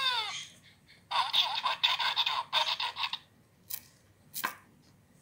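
Tinny electronic sound effects from a children's Play-a-Sound book's button sound module: a falling pitch glide at the start, then a busier burst lasting about two seconds. Near the end two brief rustles as the board book's cover is opened.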